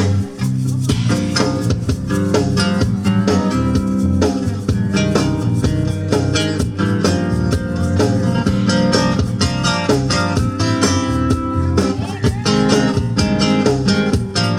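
Guitar music in an instrumental passage between sung lines, strummed and plucked with a steady beat.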